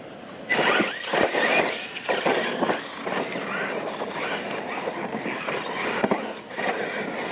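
Losi LMT radio-controlled monster trucks launching off the start and racing, their electric motors and drivetrains whining and squealing, starting about half a second in.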